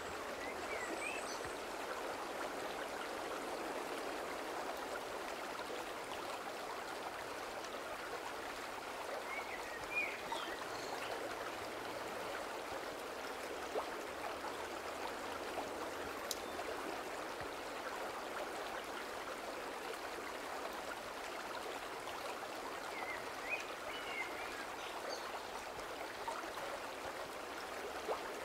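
Shallow, rocky forest stream rushing over stones: a steady, even rush of water.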